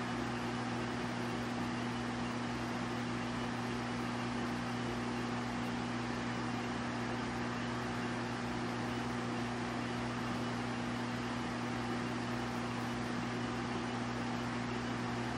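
Steady low electrical hum under an even hiss, as from a running fan or other motor-driven appliance.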